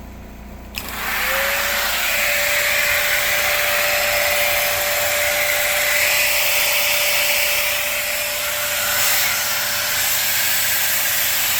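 A Panasonic MC-CG902 canister vacuum is switched on about a second in. Its motor spins up with a short rising whine, then runs steadily and loudly with a rush of air. It is running on a new internal line fuse, so the no-power fault is cured.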